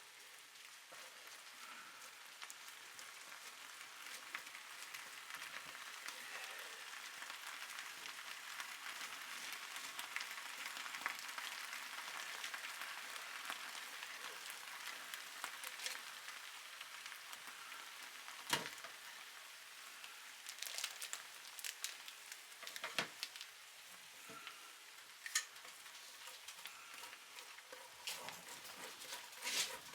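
Beef liver and potatoes sizzling in a pot with a steady hiss that swells and eases, with a few sharp clicks in the second half, the loudest about two-thirds of the way through.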